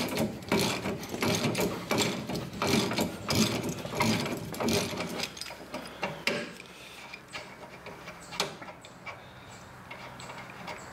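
Socket ratchet clicking rapidly as a 21mm nut is run off the lower bolt of a rear shock absorber, the bolt head held with a wrench. After about six seconds the clicking thins out to occasional light clicks.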